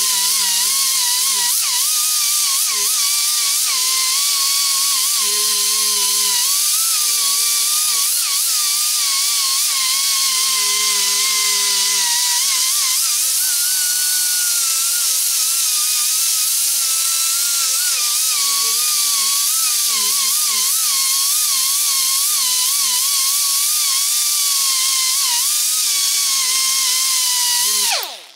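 Pneumatic right-angle grinder with a metal prep disc running with a steady high whine and heavy hiss while grinding the edge of a steel mulching mower blade; the pitch wavers as the disc is pressed against the steel and rises for a while about halfway through. Just before the end the air is let off and it spins down quickly.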